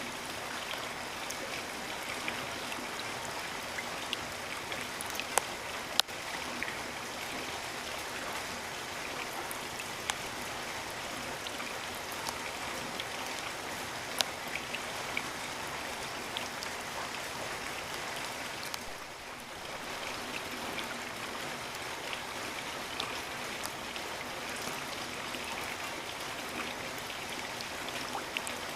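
Steady rain falling as an even hiss, with occasional sharp drips landing close by. The loudest drip comes about six seconds in.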